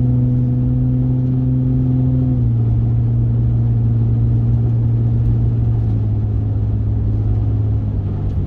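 Vehicle engine exhaust note through a newly fitted Patriot Smithy's muffler while driving: a steady, deep growl that drops slightly in pitch about two and a half seconds in, then holds.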